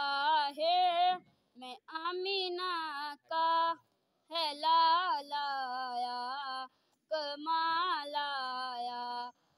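A boy's voice singing a naat unaccompanied: long held, wavering phrases in about five breaths, with short pauses between them.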